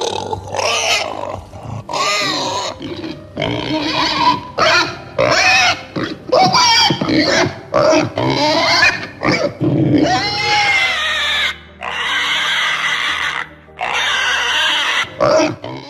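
Domestic pig calling in a dense run of short, loud calls, many sliding up and down in pitch, with longer, harsher, high-pitched calls from about ten seconds in.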